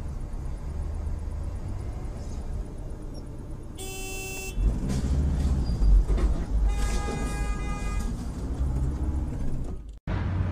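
A vehicle horn sounds twice over steady road and engine rumble from a moving vehicle: a short blast about four seconds in and a longer one about seven seconds in.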